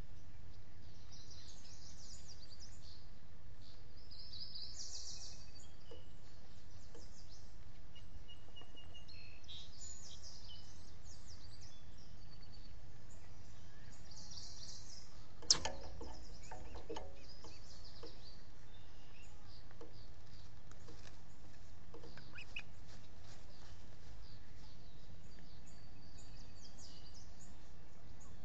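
Birds chirping and calling in short high notes over steady background noise, with one sharp knock about halfway through.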